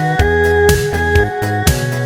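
Background music with a steady beat of about two strokes a second under sustained instrumental notes.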